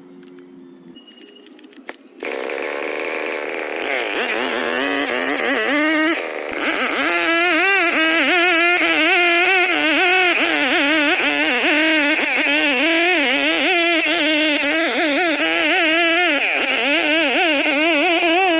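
Stihl 070 two-stroke chainsaw engine starting up suddenly about two seconds in. It climbs in speed over the next few seconds, then runs loudly with its pitch wavering up and down continuously, with a brief dip a few seconds after starting.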